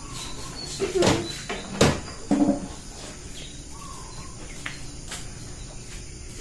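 A few sharp clicks and knocks, the loudest about two seconds in, with a bird chirping briefly in the background.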